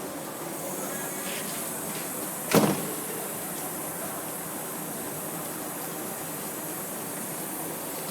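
Excavator cab door shutting with one loud bang about two and a half seconds in, over a steady background hiss.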